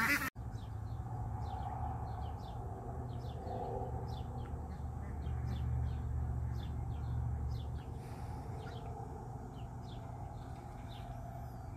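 Birds chirping: many short, high chirps in quick succession, over a low steady rumble.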